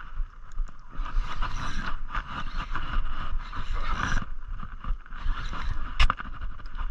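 Saltwater spinning reel being cranked to bring in a hooked fish, in stretches with short pauses, over a low rumble of wind on the microphone. A sharp click comes about six seconds in.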